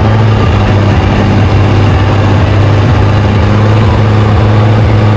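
Turbocharged Mercedes-Benz 1113 diesel engine in a 1976 Chevrolet C60 truck, idling steadily with a deep, even hum.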